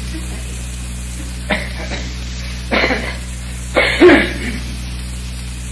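Steady hiss and mains hum of an old lecture recording, broken by a few short throat-clearing sounds from a person, the loudest about four seconds in.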